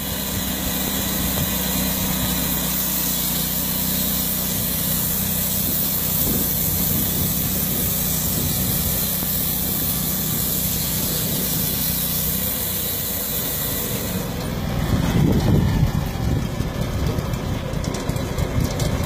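Engine-driven saw milling aromatic cedar. The engine runs steadily under a bright, even hiss, then about 14 seconds in the hiss stops and the engine's low rumble turns louder and rougher.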